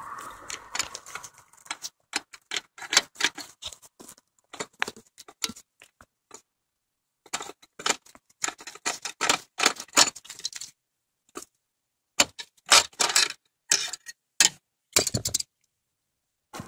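Socket ratchet clicking in quick runs of sharp ticks, with short pauses between runs, as a nut on the clutch pedal bracket is turned.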